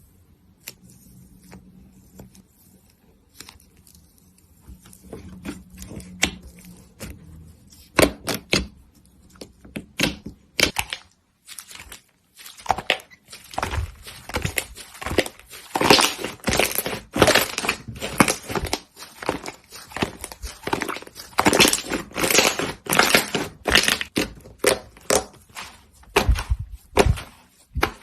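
Slime being pressed and squeezed by hand, crackling and popping: sparse soft clicks at first, then from about halfway a dense, louder run of crunchy crackles and pops.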